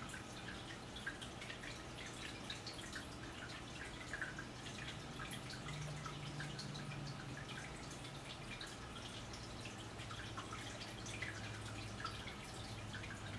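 Quiet room tone: a low steady hum with many faint, irregular clicks and ticks scattered through it.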